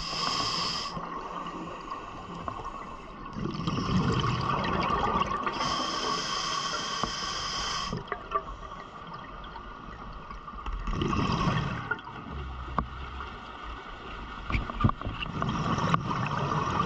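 Scuba diver breathing underwater through a regulator: a hiss on each inhalation and a burst of bubbling on each exhalation, repeating every few seconds over a steady thin whine.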